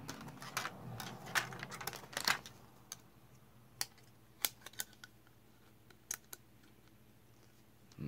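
Clicks and light clatter of a car stereo mounting dash kit's black side brackets and frame being handled and fitted together. The clicks come thick for the first two seconds or so, then only as scattered single clicks.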